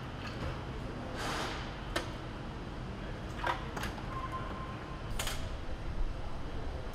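Car assembly-line ambience: a steady low hum with scattered sharp clicks and clunks of parts being fitted to a car's dash frame, and a faint steady beep lasting about a second near the middle.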